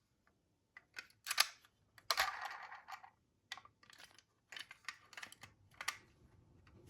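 Light clicks and knocks of toy minicars being handled and set on a toy track, with a brief rattle about two seconds in.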